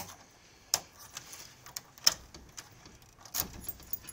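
Key unlocking a front-door deadbolt: keys jangling on the ring, with a few sharp metallic clicks about a second apart as the key turns in the lock.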